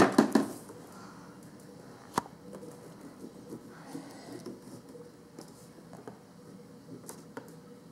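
Faint, irregular scratching of a felt-tip marker drawing short strokes on paper, with one sharp click about two seconds in.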